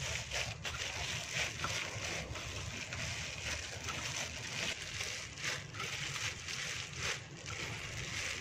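Hands squeezing and kneading a wet, mashed tofu dough, soft irregular squishing over a steady background hiss.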